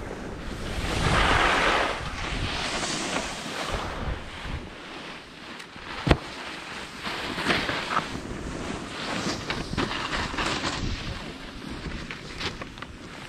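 Edges scraping and hissing over packed, groomed snow while riding downhill, in swelling surges as turns are carved, with wind buffeting the microphone. A single sharp knock about six seconds in.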